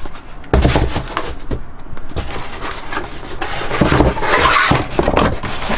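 Cardboard boxes scraping and rubbing against each other as a hand shifts a small carton and pulls it out of a packed shipping box, starting suddenly about half a second in.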